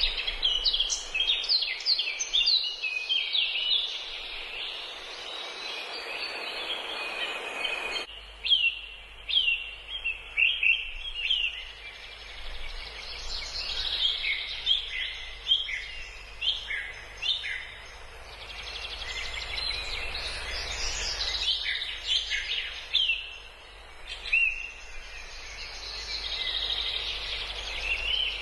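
A chorus of many small birds chirping, with rapid overlapping short chirps and quick down-slurred notes over a steady background hiss. The hiss changes abruptly about eight seconds in and again about twenty-one seconds in.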